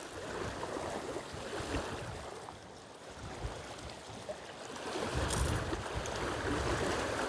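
Wind gusting on the microphone, with waves lapping on a rocky lakeshore; the gusts strengthen about five seconds in.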